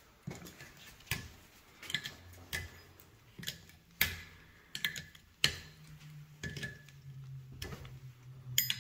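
Pliers clicking and scraping against the aluminium Subaru EJ25 cylinder head as the valve stem seals and spring shims are pulled out: about a dozen sharp, irregular metal clicks. A low steady hum comes in about halfway through.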